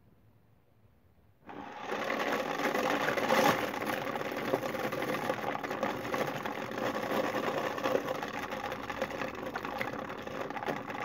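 Small electric motor of a homemade Arduino-controlled feeder switching on about a second and a half in and running steadily as it turns the paddle inside the plastic container: a loud, rough mechanical whirr.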